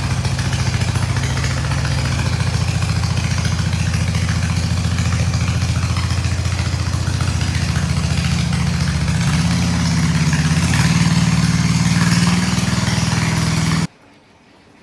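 Riding lawnmower engine running steadily, lifting in pitch briefly about two-thirds of the way through, then cutting off suddenly near the end.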